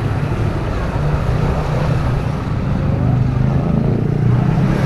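Motorcycle engines running at low riding speed, a steady low hum that grows a little louder near the end.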